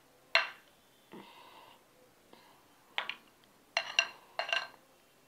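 A metal spoon clinking and scraping against a serving bowl and plate as curry is spooned out: several sharp ringing clinks, with a short scrape about a second in.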